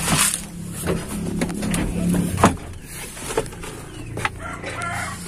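Knocks and clunks of a truck's cab door and cab as someone climbs into the driver's seat, over a steady low hum.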